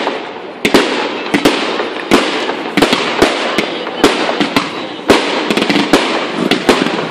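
Aerial fireworks going off in quick succession: sharp, irregular bangs about twice a second over a steady rush of noise.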